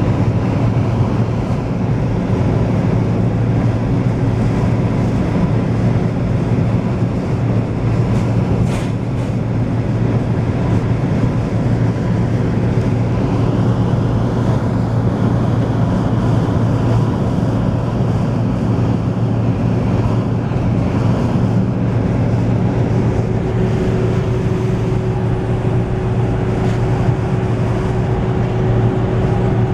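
Steady low drone of engine and tyre noise heard from inside a vehicle's cab cruising at highway speed.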